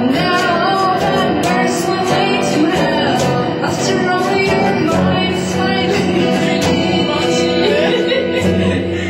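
A woman singing a song with guitar accompaniment, holding long, wavering notes over the guitar.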